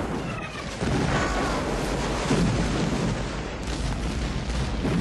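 Movie battle soundtrack: a continuous din of cannon fire, gunfire and explosions overlapping with no pauses.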